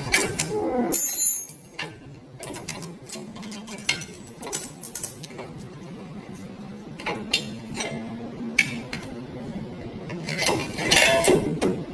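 Metal tools and parts clinking and knocking against each other in irregular, scattered strikes, with a louder run of clattering near the end.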